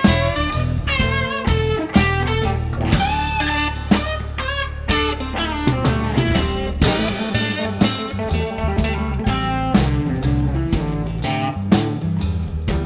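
Blues band playing an instrumental break: an electric guitar lead bending notes over bass guitar and a steady drum-kit beat.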